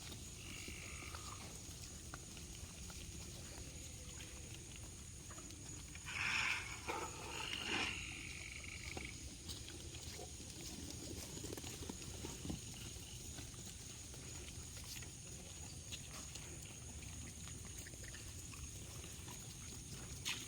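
Farm animal calls, loudest about six and eight seconds in, over a low steady background.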